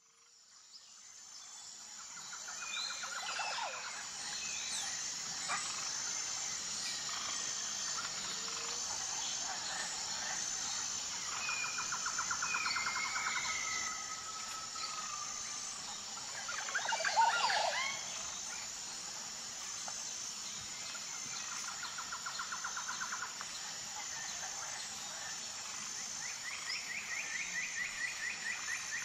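Forest ambience: birds singing rapid trills and whistled, gliding calls over a steady high-pitched drone that pulses about once a second. It fades in over the first couple of seconds, and the loudest run of calls comes a little past the middle.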